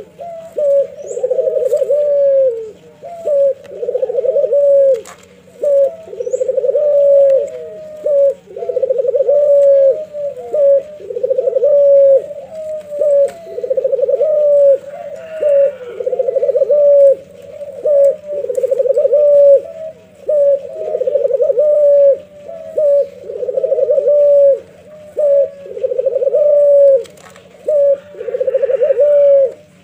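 Domestic Barbary dove (puter) cooing over and over, about one rolling coo every second and a half, each ending on a falling note. A faint steady low hum runs underneath.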